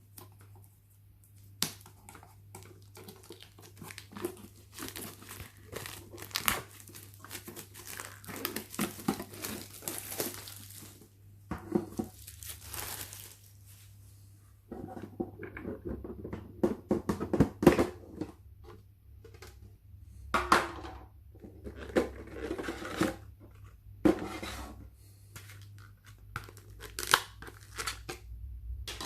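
Plastic packaging crinkling and tearing as a trading-card tin is unwrapped and handled, in long crackling stretches with occasional sharp clicks and knocks.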